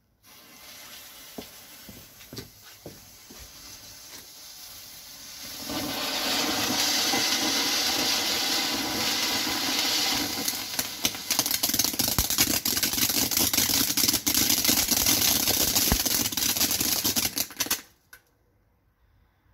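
GBV-WECO Volcano cone fountain firework burning: a hiss that starts quietly and grows much louder about five seconds in, joined by many sharp crackles from about ten seconds in, then cuts off as the fountain burns out near the end.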